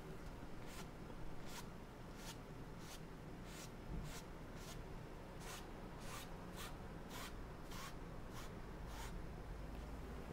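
Bristle brush stroked against an oil-painted canvas in a run of short strokes, about one and a half a second.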